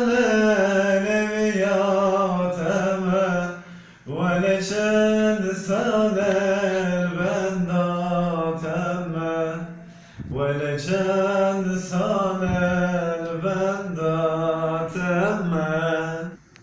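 A man singing solo and unaccompanied: a slow melody of long held, ornamented notes, sung in three phrases with short breaths between them, stopping near the end.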